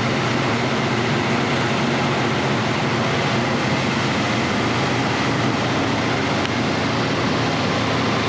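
Temporary power generator running steadily at about 80 dB, heard from about 10 feet away on its uncovered side with no noise barrier in between: an even, unbroken engine drone.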